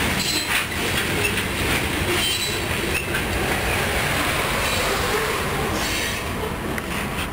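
Freight train's covered hopper cars rolling past on steel wheels as the tail end of the train goes by, the rail noise dying down near the end.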